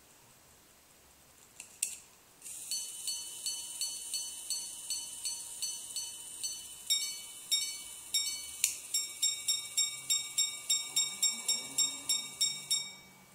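Vacheron Constantin minute-repeater pocket watch striking the time on its gongs after a click as the repeater is set off: a slow series of lower strikes for the hours, a few two-tone strikes for the quarters, then a quicker run of high strikes for the minutes.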